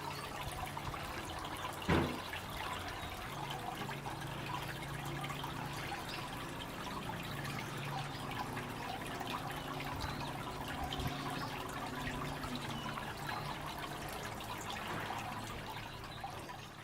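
Water trickling and splashing steadily, with one sharp knock about two seconds in.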